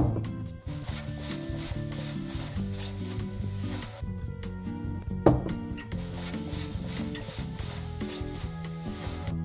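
Hand-sanding a small wooden block: quick back-and-forth rubbing strokes, about five a second, that stop for about two seconds from around four seconds in and then resume. A sharp tap comes about five seconds in, over light background music.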